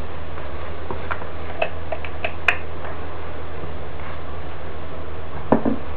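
Steady low electrical hum and hiss of the recording, with a handful of short faint clicks scattered through it and one slightly louder click near the end.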